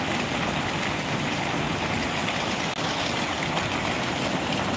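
Steady rushing noise of a muddy river in flood, under heavy rain.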